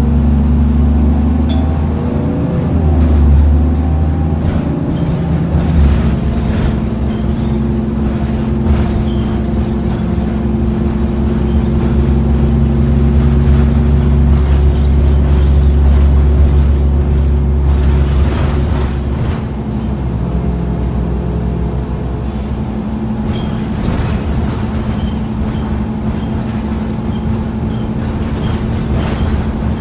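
Orion VII city bus engine and drivetrain heard from inside the cabin while the bus drives, a steady low drone with a short rising whine about two seconds in. The drone gets louder in the middle and eases off a little before twenty seconds in.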